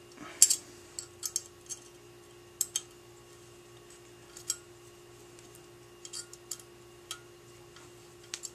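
Light metallic clicks and ticks, irregularly spaced, as an Allen wrench turns and seats the screws of a two-piece quad rail handguard. A faint steady hum runs underneath.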